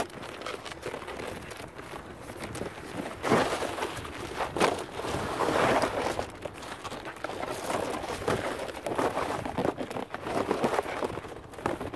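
Folding boat's plastic panels being handled, flexed and folded into shape by hand: irregular rustling, crinkling and clattering, louder in a few spells.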